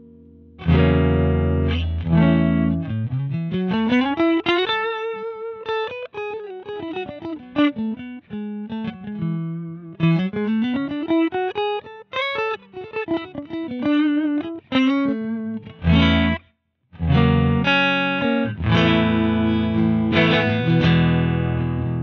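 Electric guitar played through a TC Electronic Mimiq Mini Doubler pedal. Chords come in just under a second in, then a run of single notes climbs and falls, twice. After a short break, chords resume.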